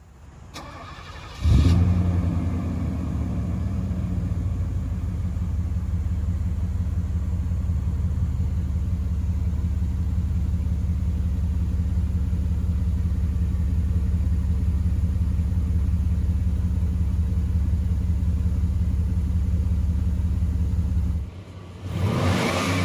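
A 1987 Mercedes-Benz 560SL's V8 is cranked by the starter for about a second, catches with a loud flare, and settles into a steady idle. Near the end, after a brief drop in level, the engine is revved up.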